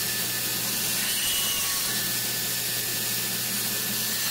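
Electric woodworking machine running steadily: an even hiss over a low, constant hum.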